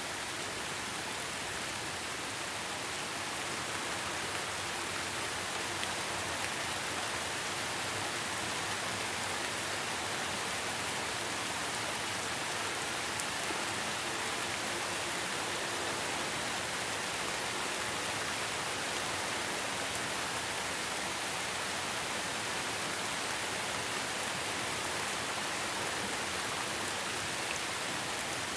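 Heavy rain falling steadily, an even hiss with no break and no thunder.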